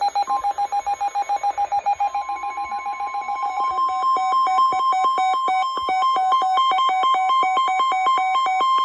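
Emergency alert tones for a severe thunderstorm warning on NOAA Weather Radio: loud, fast electronic beeping, about eight beeps a second. About three and a half seconds in it changes to alternating high and low beeps. The tones mark the start of a warning broadcast.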